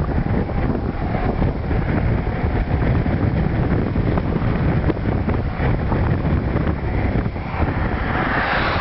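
Storm wind buffeting the microphone: a steady, gusty rumble and rush, with a louder hiss building near the end.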